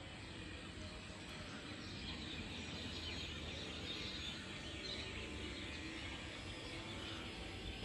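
Dawn outdoor ambience: many birds chirping and calling together in a dense chatter, over a low steady rumble.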